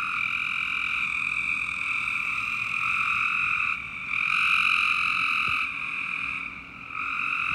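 A loud breeding chorus of many frogs calling at once, a continuous dense din without a break, dipping briefly twice.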